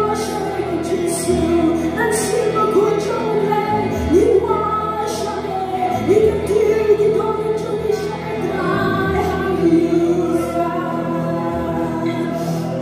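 Live gospel praise-and-worship music: several women singing a melody together into microphones, backed by a small band of electric bass, acoustic guitar and drum kit, with cymbal strikes now and then.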